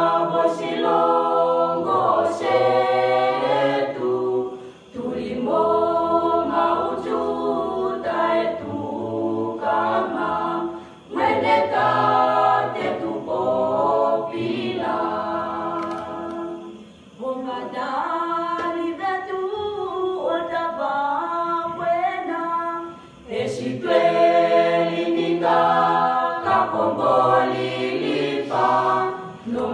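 Mixed school choir of girls and boys singing unaccompanied in harmony, with low male voices under higher girls' voices. The singing goes in phrases, each ending in a brief pause about every six seconds.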